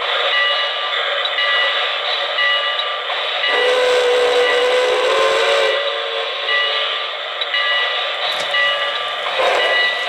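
Lionel RailSounds of a K-Line New York Central J1 Hudson O-gauge steam locomotive running slowly. A deep steam whistle blows for about two seconds, starting around three and a half seconds in.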